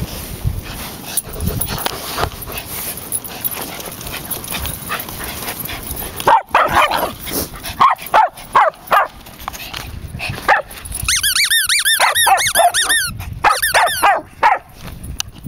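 Dog barking in short, high-pitched yaps, starting about six seconds in, with a rapid run of rising-and-falling yips a few seconds later: play barking.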